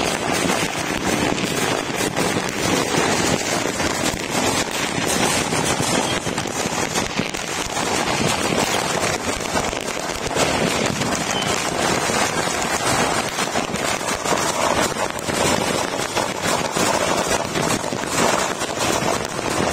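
Many firecrackers and aerial fireworks going off all over a town at once, blending into a dense, continuous crackling and popping with no single bang standing out.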